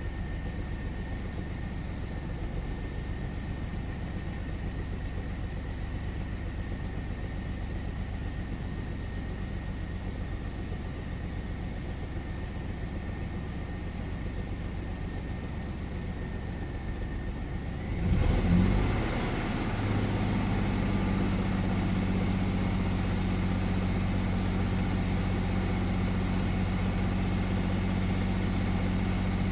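A steady low hum with a faint high whine. About two-thirds of the way through, the 1999 Chevy S10's 4.3-litre V6 starts with a brief flare and settles into a steady idle. It is misfiring, with no fuel reaching cylinders 4 and 6.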